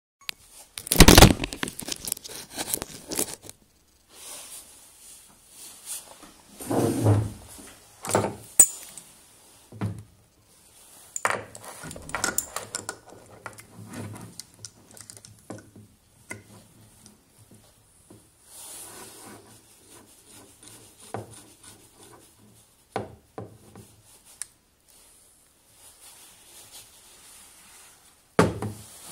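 Metal tools and a small motor armature handled on a wooden workbench: irregular clinks, knocks and rubbing as a three-jaw bearing puller is fitted over the armature shaft. A loud knock about a second in.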